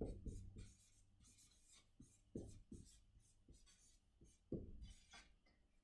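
Felt-tip marker writing on a large sheet of paper: faint, short, irregular strokes as letters are drawn.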